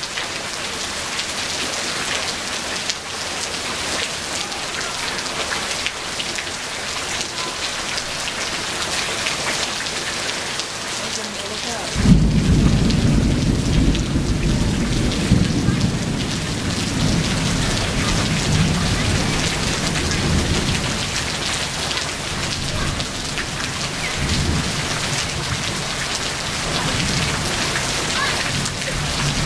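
Heavy rain pouring steadily. About twelve seconds in, a sudden loud crack of thunder, then a low rumble that fades out over several seconds.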